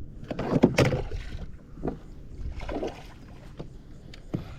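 Water splashing in irregular bursts beside a kayak, with a few knocks, as a hooked fish is fought at the surface; the loudest splash comes about a second in and a sharp knock near the end.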